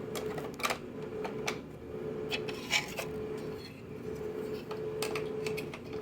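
Plastic clicks and small knocks from handling projector parts, with the air filter being dealt with, over a steady low hum that drops out now and then.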